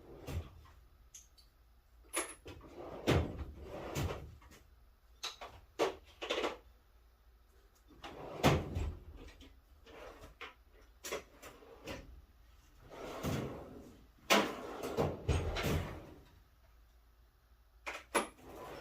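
Clicks, clunks and scraping from a Fox-body Mustang's door as its newly fitted door handle and latch are worked: a dozen or so separate sharp knocks, with a few longer scraping stretches.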